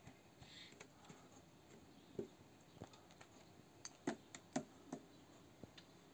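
Faint, irregular light taps and knocks, about half a dozen scattered through a quiet stretch, as a cat bats at a wooden stick and balls of yarn in a wicker basket. The sharpest two come close together a little past the middle.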